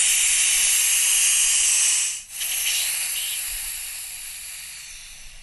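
High-pressure air hissing out of an Air Venturi Avenger PCP air rifle's bleeder port as its air tube is drained. A loud, steady hiss breaks briefly about two seconds in, then comes back weaker and fades away as the reservoir empties.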